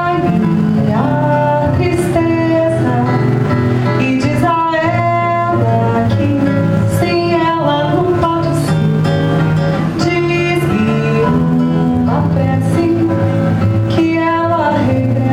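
Acoustic guitar (violão) playing a bossa nova piece, plucked chords over a bass line, at a steady level.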